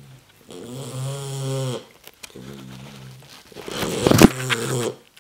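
A 9-week-old Tibetan Mastiff puppy snoring in its sleep: two drawn-out, pitched snores, then a louder, rougher snore about four seconds in.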